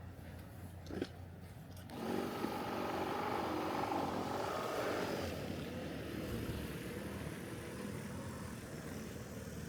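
A motor engine running, starting up loud with a wavering pitch about two seconds in and easing to a softer, steadier drone after about five seconds, with a single sharp click shortly before it.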